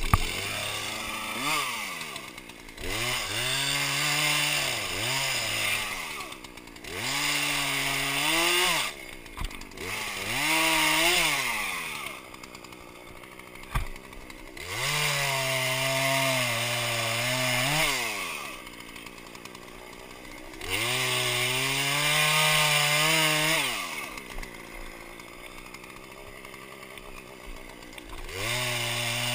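Two-stroke Poulan chainsaw revving up from idle again and again, each surge climbing steeply and falling back, two of them held at high speed for a few seconds while cutting through a fallen dead tree.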